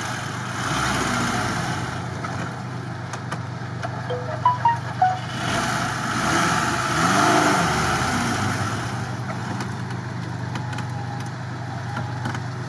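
Lada Niva engine running under load as the car strains in deep sand, its tyres spinning and shoving sand ahead of it. The engine swells about a second in and again for a couple of seconds in the middle, with a few short louder spikes between.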